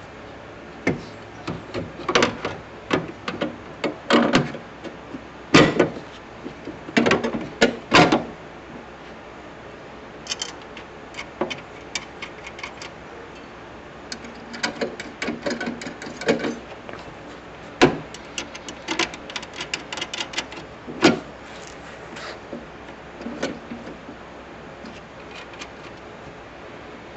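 Hand tools and a metal antenna bracket clicking and knocking irregularly as the bracket is fitted and its bolts are run in, with a couple of quick runs of ticks in the second half.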